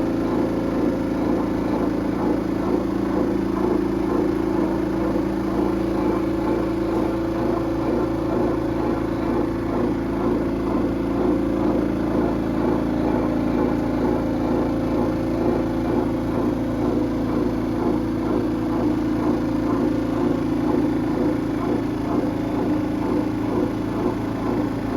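Kuppet portable twin-tub washing machine's spin dryer running steadily at speed with an unbalanced load, a soaking wet towel bunched to one side, giving an even motor hum with no knocking or rattling.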